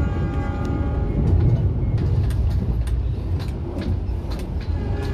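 Argo Wilis passenger train running on the line, heard from on board: a steady low rumble with frequent sharp clicks and rattles. A faint high tone sounds briefly near the start.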